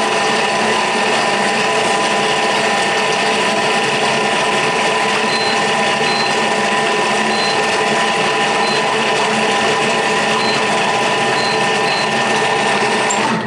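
Thermomix food processor's motor running steadily as it stirs crepe batter: a steady whine made of several even tones. It cuts off suddenly at the end.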